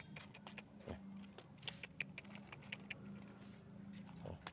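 Irregular quick clicks and crunching of dry kibble as cats eat from plastic tubs and the tubs are handled and set down.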